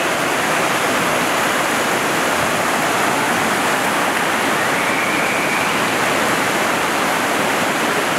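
Whitewater river rapids rushing, a loud, steady wash of water.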